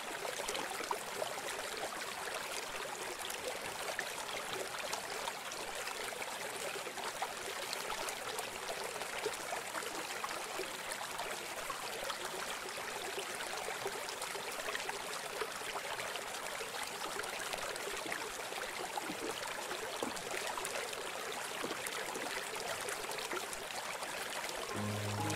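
Steady flowing, trickling water with an even, thin hiss and no deep rumble.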